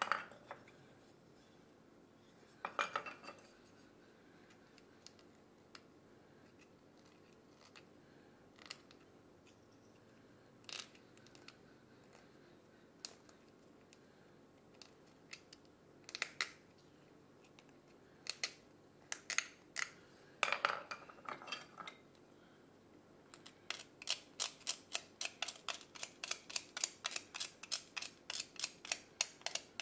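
A small hand carving blade paring and scraping a tagua nut (vegetable ivory), short crisp cuts at first. About two-thirds of the way in they become a quick steady run of strokes, roughly five a second.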